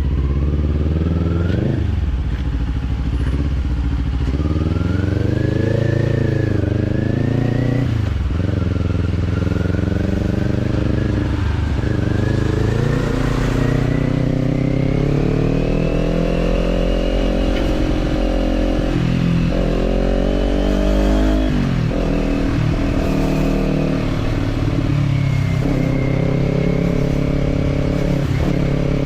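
Kawasaki parallel-twin motorcycle engine through a slip-on exhaust, under way: the revs climb and drop over and over, with short breaks about seven times as gears change or the throttle closes. A faint high whine rises and falls along with the engine.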